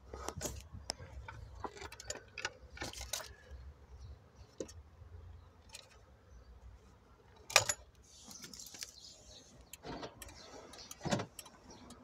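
Handling noises from car wiring and a plastic remote-locking module: scattered small clicks and rustles, with one sharp click about seven and a half seconds in. Keys and key rings jingle near the end.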